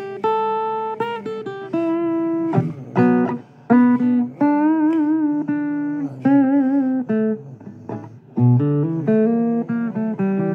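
Blues guitar played as single plucked notes and short phrases, some notes bent or shaken with vibrato, with brief pauses between phrases.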